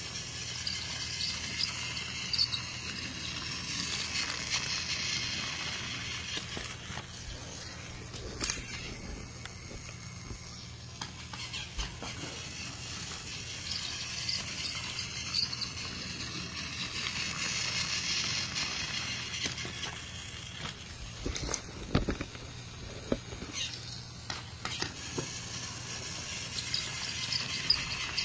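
Motorized toy train running along plastic track: a steady high whir of its small motor and gears, with scattered clicks and knocks, most of them in the last third.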